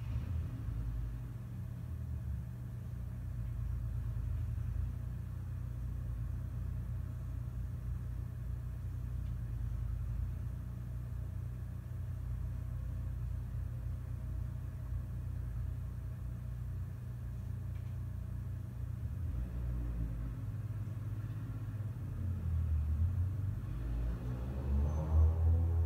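Steady low rumble with a hum underneath, heard inside a hotel room, swelling louder with a sweeping, passing-by quality near the end.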